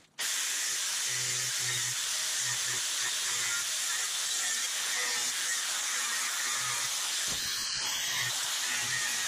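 Hand-held air-powered cutting tool running steadily as it trims the edge of a sheet-metal grille shell, a constant hiss that starts just after the beginning.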